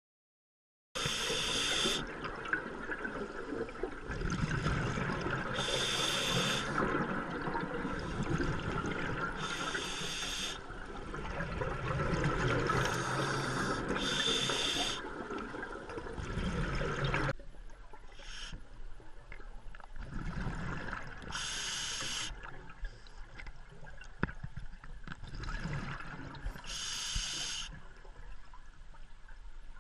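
Scuba diver breathing through a regulator underwater: a hiss about a second long on each breath in, roughly every four seconds, with bubbling exhaled air in between. The bubbling grows fainter a little past halfway.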